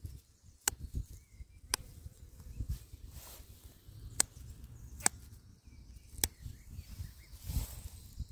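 Dandelion stems snapping as the flowers are picked by hand: a sharp click about once a second, five or so in all, with faint rustling of grass between.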